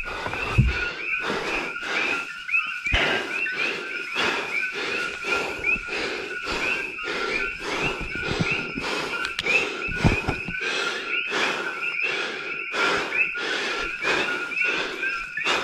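Dense chorus of coqui frogs, many overlapping two-note chirps calling without a break, with footsteps crunching through brush and grass about twice a second.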